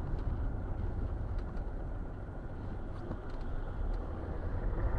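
Car on the move: steady low engine and road rumble, with a few faint clicks.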